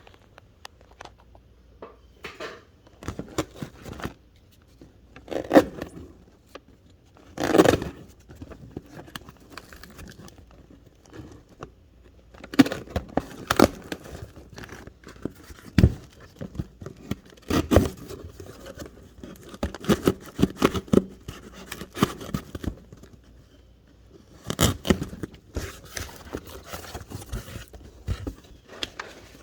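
Hands rummaging through a cardboard shipping box: the cardboard and packing material rustle and scrape, with scattered clicks and knocks as items are moved about.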